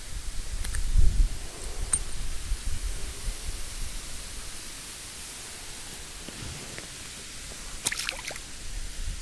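Steady outdoor hiss with a low rumble on the microphone in the first few seconds, then a short splash about eight seconds in as a small caught fish is dropped back into the pond.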